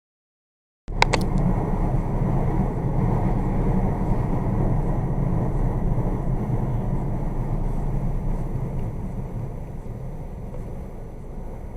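Steady low rumble of a moving car, cutting in suddenly with a few clicks about a second in and easing slightly near the end.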